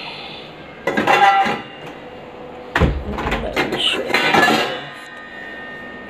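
Stainless steel vessels clinking and clanging against each other and the dishwasher's wire rack as they are handled, in two bouts: a short clatter about a second in, then a heavier knock near three seconds followed by more clinking, the metal ringing briefly after the strikes.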